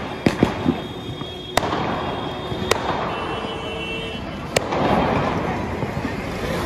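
Diwali firecrackers and fireworks going off: a quick string of sharp bangs in the first second, then single loud cracks every second or two over a steady crackling din. A thin steady whistling tone sounds between the bangs in the middle.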